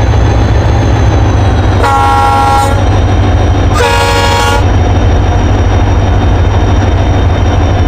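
Train running with a steady low rumble, sounding its horn twice in short blasts about two seconds apart.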